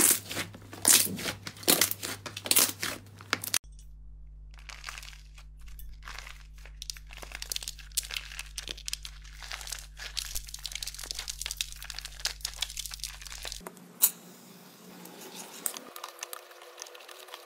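Hands kneading a big blob of soft slime, with loud sticky pops and squelches for about the first three and a half seconds. Then dry, crumbly slime is torn apart and crumbled by hand, giving a long run of fine crackling and tearing. About fourteen seconds in there is one sharp click, followed by quieter handling of a soft slime.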